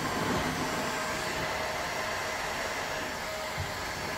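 Electric heat gun blowing steadily, with a thin steady whine over its airflow, as it heats the edges of a cracked plastic blow mold to soften them for bonding.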